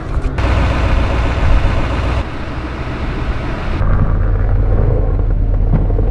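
Truck engine idling in a steady low rumble. A loud hiss lies over it for the first three or four seconds, then cuts off, leaving the rumble alone.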